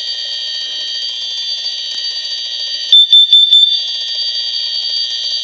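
Several smoke alarms sounding at once, a steady mix of high-pitched tones. About three seconds in, one detector gives a quick run of about five loud, high beeps.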